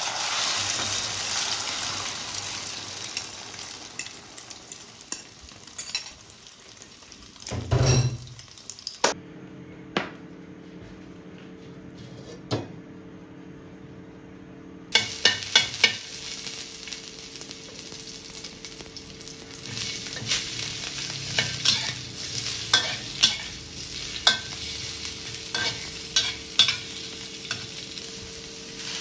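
Beaten egg and vegetables hitting hot oil in a steel wok, sizzling loudly and then dying down. A single heavy thump about eight seconds in. Later, frying sizzle with many sharp clicks and scrapes of a metal spatula against the wok as the food is stir-fried.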